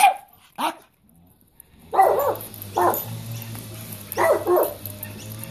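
Several Jack Russell terriers barking in short runs, about six barks, at the sound of a lawn mower, which runs as a steady low hum behind them from about two seconds in.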